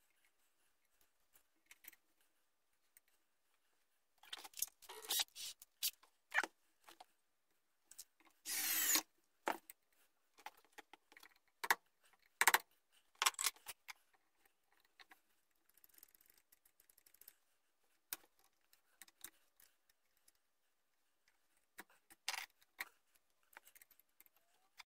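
Scattered clicks, taps and short scrapes of a small metal trigger, its pin and hand tools being worked into a wooden flintlock rifle stock, with one longer scrape about nine seconds in.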